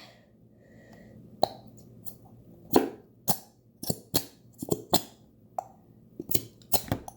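A plastic squeeze bottle of glue being worked to empty it into a bowl: about a dozen sharp, irregular clicks and knocks, starting about a second and a half in and coming faster in the second half.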